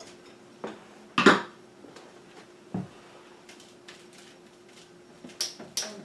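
A few short knocks and clatters from handling at a whiteboard, one louder knock just after a second in and a cluster of quick scrapes and clicks near the end, over a faint steady hum.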